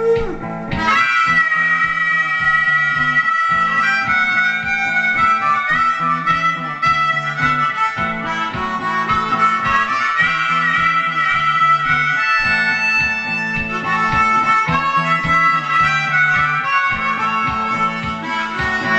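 Amplified blues harmonica, a Hohner Big River harp in D, played cupped with a microphone through an amp: a solo of held and bent notes starting about a second in. It plays over a looped guitar backing with a steady rhythm.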